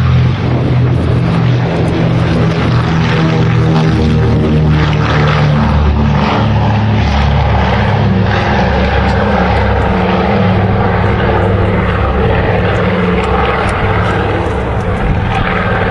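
Consolidated B-24 Liberator's four Pratt & Whitney R-1830 Twin Wasp radial engines and propellers running in a loud, steady drone, with the pitch rising a few seconds in.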